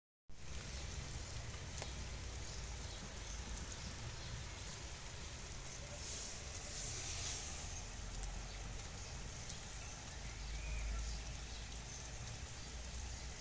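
Heavy rain falling steadily, a constant hiss with scattered drop ticks and a low rumble underneath.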